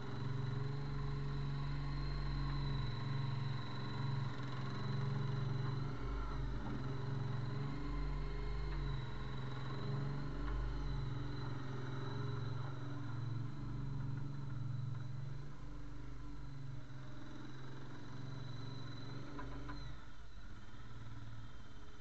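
Avant 218 compact loader's engine running steadily, with a thin high whine over it; the sound eases off a little in the second half as the loader moves away.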